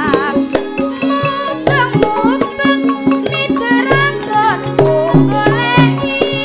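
A girl's solo voice singing a Javanese song into a microphone, sliding between notes, over a gamelan ensemble with kendang drums beating a steady rhythm and low drum notes repeating underneath.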